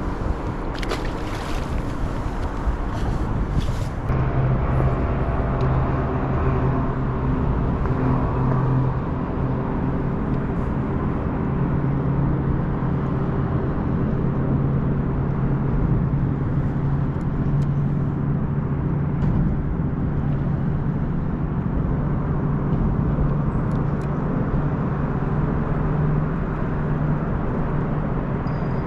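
Road traffic on a bridge overhead, a steady rumble with a low hum. A few sharp clicks come in the first few seconds.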